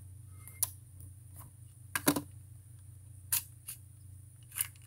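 Scattered clicks and clacks of a scoped AR-15 rifle and gear being handled on a wooden shooting bench, about half a dozen, the loudest a quick double clack about two seconds in, over a faint steady low hum.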